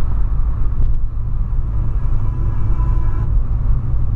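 Loud, deep low rumble inside the cabin of a moving 2008 VW Polo sedan, with the car stereo's music only faint above it.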